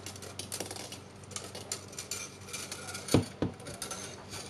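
Light metal clicks and clinks of coil springs and steel guide rods being handled while the springs are fitted onto a nail gun's striker assembly, with two louder knocks about three seconds in.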